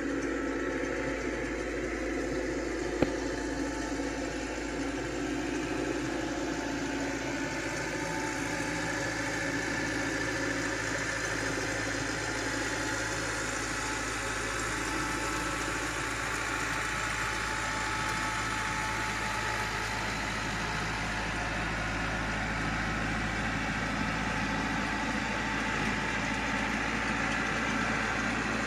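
An engine running steadily, with a single sharp click about three seconds in.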